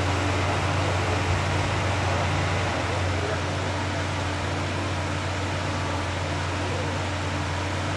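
Mid-engined Ferrari engine idling steadily with its engine cover open, a continuous low hum.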